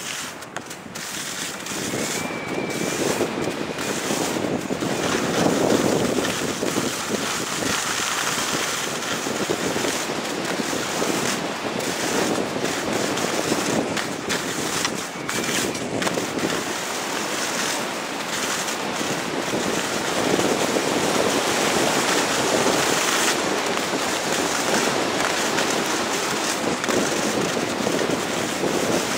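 Wind rushing over the camera microphone during a fast run down a groomed ski slope, with the steady hiss and scrape of sliding on packed snow. It builds over the first couple of seconds, then holds.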